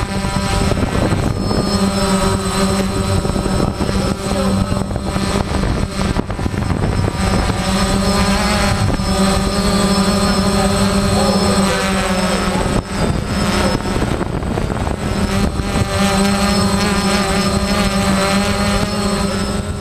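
Grain-handling machinery running: a loud, steady drone with a strong low hum and a thin high whine.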